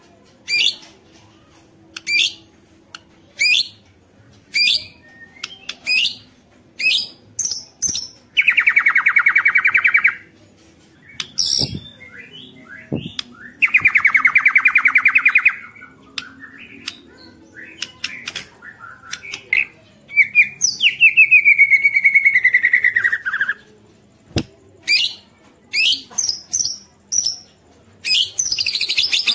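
White-rumped shama (murai batu) calling: a string of short sharp notes about one a second, broken twice by long rapid buzzy rattles and once by a long buzzy call that falls in pitch. The harsh rattles are the shama's agitated 'ketrekan' call, used to provoke other shamas into singing.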